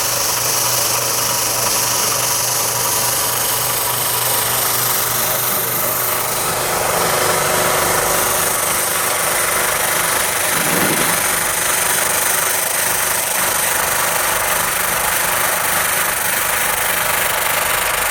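Automatic electric sanding machine running steadily: a motor hum under a dense, even hiss.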